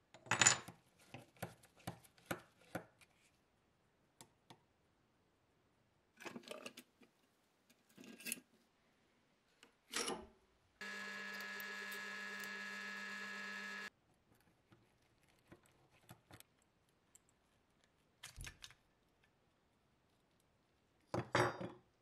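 Small metal parts being pried and scraped with a blade, a quick run of sharp clicks and taps. About eleven seconds in, a benchtop drill press runs steadily for about three seconds, drilling into a rusty part clamped in a vise. Later come a few more knocks as metal parts are handled.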